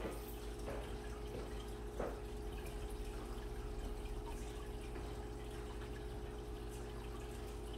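Quiet room tone: a steady low electrical hum with a few faint ticks in the first two seconds.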